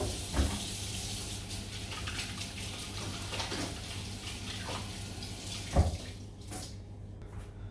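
Water running from a tap while hands are washed under it, with a knock about half a second in and a louder knock near six seconds, after which the running water stops.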